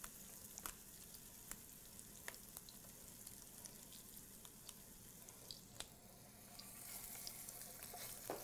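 Tuna patties frying in hot oil in a nonstick skillet: a faint steady sizzle with scattered small pops and crackles, growing a little louder near the end.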